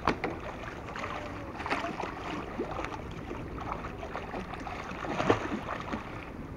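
A large hooked fish thrashing at the water's surface, splashing irregularly in bursts, with the biggest splash about five seconds in.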